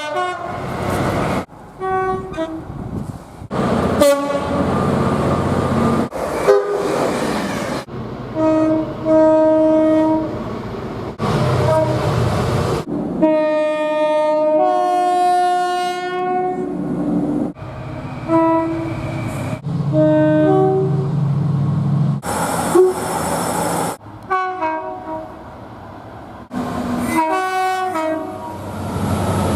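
A rapid succession of short clips of railway train horns sounding: blasts of one or two notes, each clip cut off abruptly and replaced by the next, with the low rumble of the trains under several of them.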